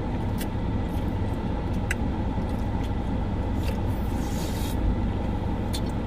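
Steady low rumble of a running car heard from inside the cabin, with a few short clicks from eating with a plastic spoon.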